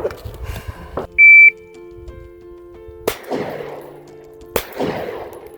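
A shot timer's start beep, one high steady tone lasting about a third of a second, then two pistol shots about a second and a half apart. Each shot rings out with a long echo.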